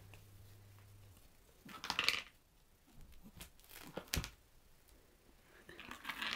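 A cat scuffing and scrabbling on a fabric doormat while it plays, in short rustling bouts, with a sharp knock just after four seconds in. A low steady hum stops about a second in.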